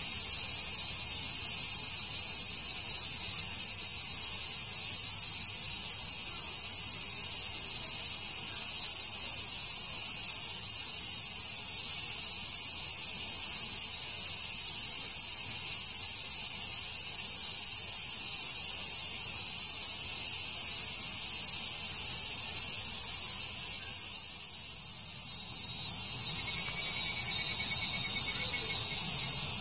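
A dense summer chorus of cicadas: a continuous, high-pitched buzzing drone that fades briefly about three-quarters of the way through, then swells back.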